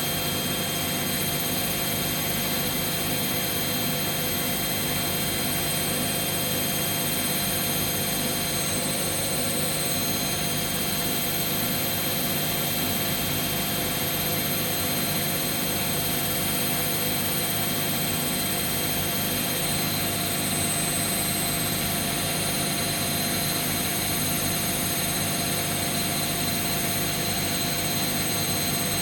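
Washing machines in their final spin, drums turning at high speed: a steady whine of motor and drum with several constant tones over a rushing hiss, and no change in speed.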